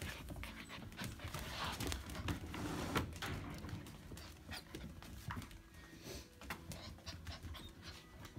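Nine-week-old Pyredoodle puppies panting as they scamper about, with scattered light clicks and taps, busier in the first few seconds.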